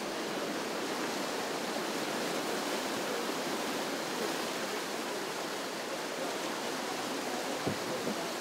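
Whitewater rapids rushing steadily, with a single brief knock near the end.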